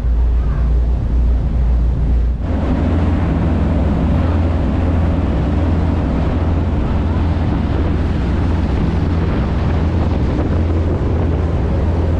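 A ferry's engine drones steadily under wind buffeting the microphone and the rush of churned water from the boat's wake. About two and a half seconds in, the sound changes abruptly and becomes fuller and noisier.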